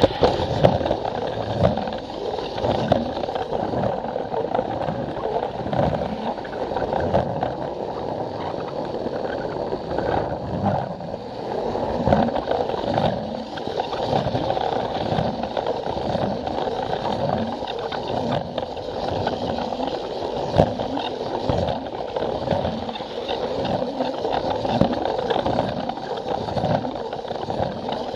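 A battery-powered Plarail toy train running along plastic track: a steady motor and gear whine, with repeated clacks as the wheels roll over the track joints.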